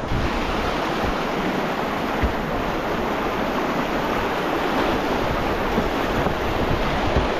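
Whitewater of a river rapid rushing steadily, a dense, even wash of moving water.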